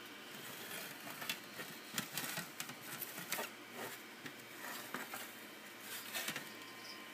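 Handling noise: irregular light clicks, taps and rustles against a clear plastic enclosure, over a steady faint hiss, dying away near the end.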